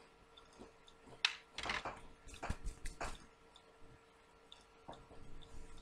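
A person chewing an Oreo cookie: a handful of short crunches between about one and three seconds in, then faint mouth sounds.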